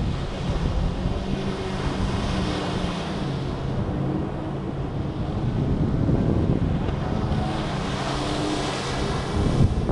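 Jet ski engine running steadily as the craft speeds by, with a rushing hiss of spray that swells as it sweeps close in the second half. Wind buffets the microphone.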